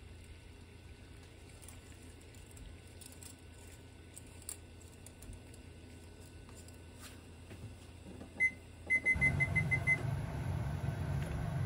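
Microwave oven keypad beeping: a single short beep, then a quick run of about half a dozen beeps, after which the oven starts up with a steady low hum. Before that only faint room tone with a few light clicks.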